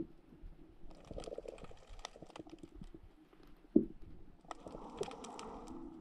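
Faint underwater sound picked up through a diving camera's housing: scattered crackling and clicking in two spells, with a dull thump at the start and another just before four seconds in.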